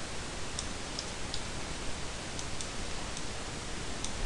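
Steady background hiss with a few faint, sharp clicks of a computer mouse as vertices are selected and dragged.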